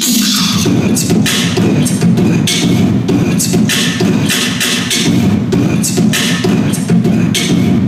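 A choir singing a rhythmic song, with sharp hissing percussive accents about twice a second over the sustained voices.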